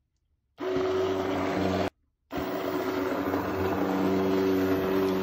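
Hand blender running in a pot of thick cooked mash, pureeing it into porridge. It switches on about half a second in, cuts out briefly around two seconds, then runs steadily again.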